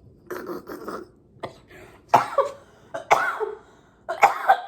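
A person coughing and clearing their throat, about five separate coughs over a few seconds, brought on by a very hot spicy sauce.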